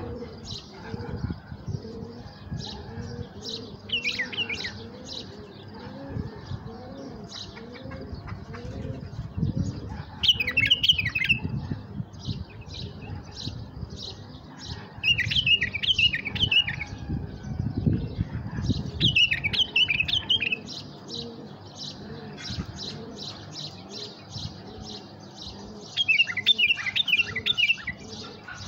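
Bulbuls calling: a steady run of short high chirps, about three a second, broken five times by louder bursts of quick falling notes. A dove coos low in the background during the first several seconds.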